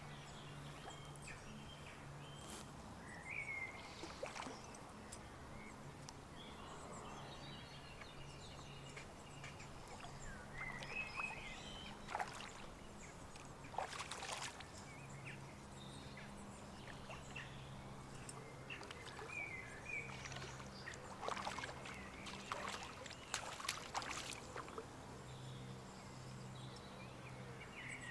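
Faint outdoor ambience: scattered short bird chirps over a low steady hum, with a few sharp clicks or knocks, the loudest about 12, 14 and 22–24 seconds in.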